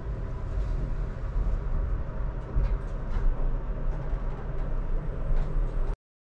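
Steady low rumble inside an elevator car, with a few faint clicks, as its doors close behind the rider. The sound cuts off suddenly near the end.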